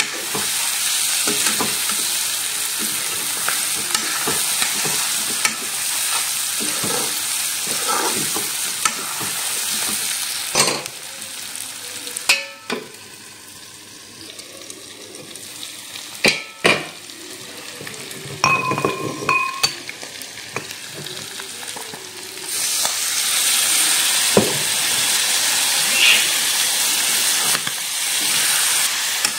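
Broiler chicken pieces sizzling as they fry in a wok, with a spoon stirring and scraping against the pan and a few sharp clicks. The sizzle drops away for several seconds in the middle, when the pan is covered with its lid, then comes back strongly near the end.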